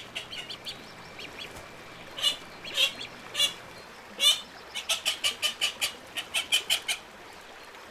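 Ducks quacking: a few separate short quacks, then from about five seconds in a fast run of short quacks, about five a second.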